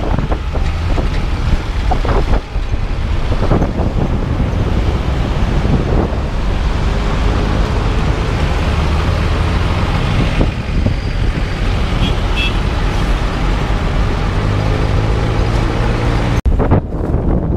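Road traffic and engine noise heard while riding along a busy main road: a steady low engine drone under a dense rush of road noise, the engine pitch rising slowly in the last few seconds.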